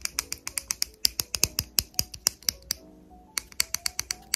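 Fingers tapping on clear plastic post-LASIK protective eye shields, a quick irregular run of sharp plastic clicks, several a second, with a brief pause a little after halfway.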